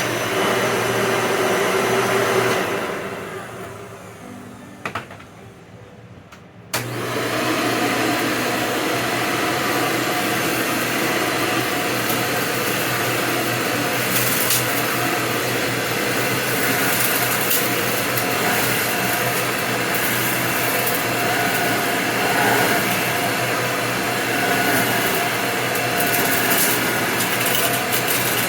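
Hoover Elite upright vacuum cleaner running, then switched off about two and a half seconds in and winding down. Two clicks follow, then a vacuum starts abruptly near seven seconds in and runs steadily.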